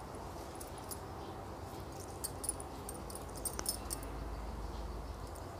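Faint, irregular light clicks and ticks from hand-crocheting with a hook and wool yarn, over a low steady hum.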